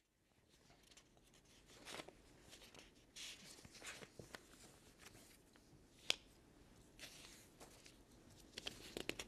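Near silence: faint studio room tone with scattered soft clicks and rustles, one sharper click about six seconds in and a few more near the end.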